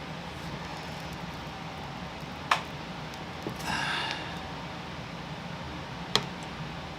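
Two sharp clicks about four seconds apart, with a short rustle between them, as a clip-on GoPro mount and camera are handled and snapped into place on an airsoft gun, over a steady low hum.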